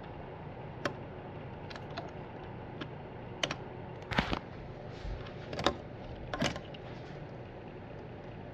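Irregular plastic clicks and taps as a pick prys at the windshield washer reservoir cap of a Cadillac CTS V-Sport, trying to work its locking tab past the filler neck; about eight sharp clicks, bunched together in the middle. A steady low hum runs underneath.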